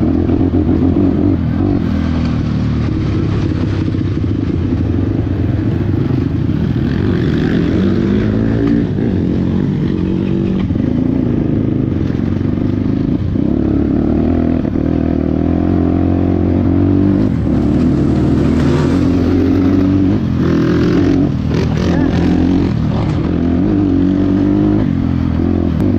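Motorcycle engine running while being ridden, its pitch rising and falling every few seconds with throttle and gear changes. A few short rattling knocks sound about three-quarters of the way in.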